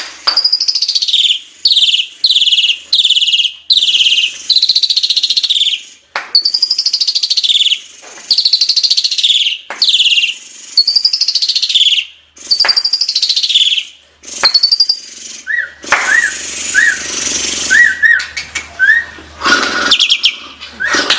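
Pied starling (jalak suren) singing loudly: runs of whistled notes, each sliding down in pitch over about half a second. In the last few seconds the song turns to a rougher, noisier chatter with small chirps.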